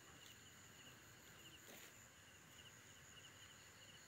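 Near silence with faint chirping of night insects, short trills repeating every second or so.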